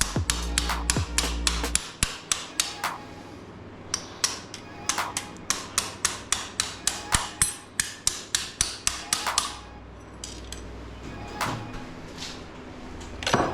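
Quick, even series of sharp taps, about five a second, from a hand tool working on the motorcycle. They come in two runs of a few seconds each with a short pause between, and a couple of single knocks follow near the end.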